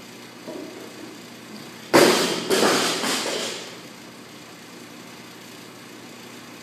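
Loaded barbell with bumper plates dropped onto a rubber gym floor: a loud slam about two seconds in, a second hit as it bounces, then the plates rattle and settle within about two seconds.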